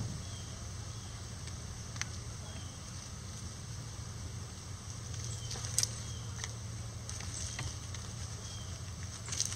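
Chickens pecking at a hanging red cabbage and moving in dry leaves: a few sharp taps and light rustles over a steady background hiss, with faint short high chirps every second or so.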